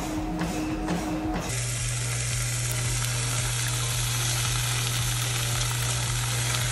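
Briefly, footfalls on a running treadmill at about three steps a second. Then, from about a second and a half in, seasoned white fish fillets sizzle steadily as they fry in a small saucepan on an induction cooktop, over a steady low hum.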